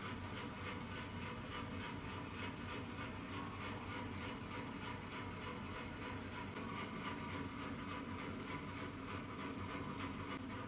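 A steady mechanical hum from a small motor or fan running evenly, with a low drone under a broad hiss.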